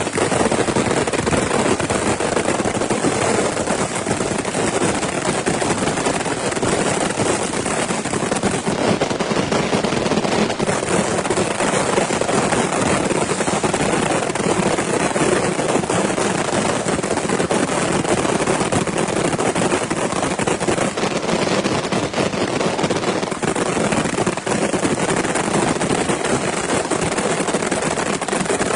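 Fireworks going off as a continuous, dense, rapid-fire crackle of small bangs, steady in loudness with no pause.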